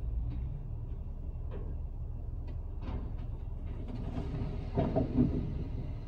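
A log-loaded semi trailer tipping over, with a louder rumbling crash about five seconds in as the logs spill onto the road. Under it runs the steady low rumble of an idling vehicle, with a few light knocks.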